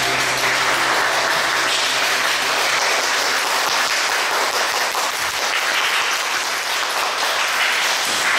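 Audience applauding steadily at the end of a song, with the song's last low note dying away in the first couple of seconds.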